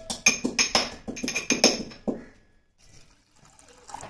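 Milk poured into a steel pot of raisins and chopped nuts, splashing against the metal for about two seconds and then stopping.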